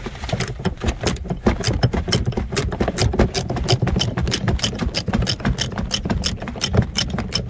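14 mm ratcheting wrench clicking rapidly and steadily, about five or six clicks a second, as it turns a seat-belt harness mounting bolt.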